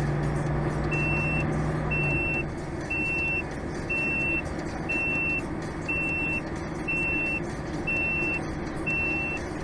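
A vehicle's reversing alarm beeping, one steady high beep about every second, starting about a second in. Underneath is the low hum of an engine running, which fades about two seconds in.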